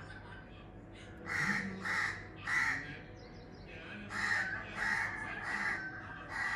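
Crows cawing: a run of three harsh caws, then after a short pause another run of three or four.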